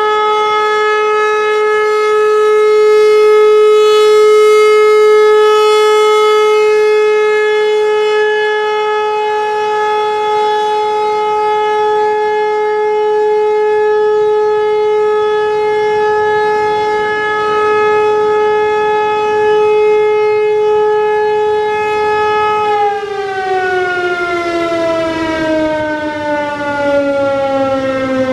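American Signal T-135 civil defense siren holding a loud steady tone, the Alert signal. About 23 seconds in it begins winding down, its pitch falling smoothly.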